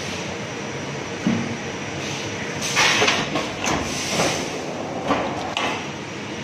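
Sliding-table high-frequency plastic welding machine at work: a steady machine hum, with a run of short sharp hisses and knocks starting about halfway through.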